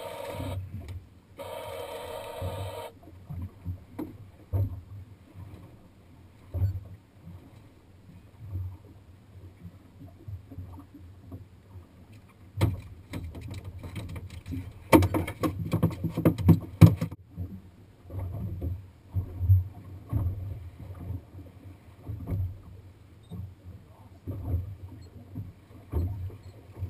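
Water slapping against a small boat's fibreglass hull in repeated low thumps, with wind on the microphone. A buzzing, pitched tone sounds for about a second and a half near the start, and a burst of sharp knocks and clatter comes about halfway through.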